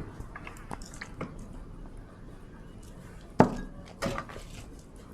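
Kitchen dishes and containers clinking and knocking against a mixing bowl as wet ingredients are added, with two louder knocks about three and a half and four seconds in.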